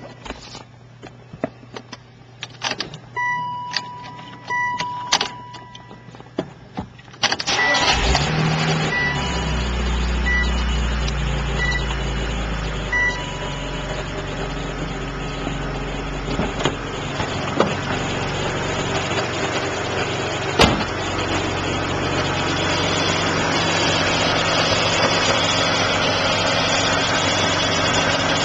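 BMW Z3 Roadster's 2.5-litre straight-six engine starting about seven seconds in, then running at a high idle that eases down and settles into a steady idle. Before the start there are clicks and repeated dashboard beeps, and a few more beeps sound just after the engine catches.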